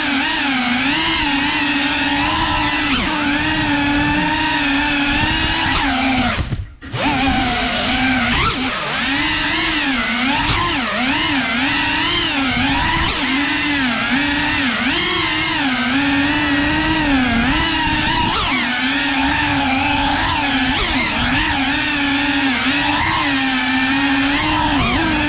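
FPV racing drone's brushless motors and propellers whining, the pitch rising and falling constantly with the throttle; the sound drops away almost completely for a moment about seven seconds in.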